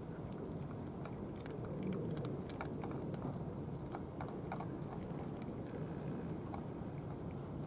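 Tabby cat crunching food pieces off the ground: quick, irregular crunching clicks that thin out near the end as it stops eating, over a steady low background rumble.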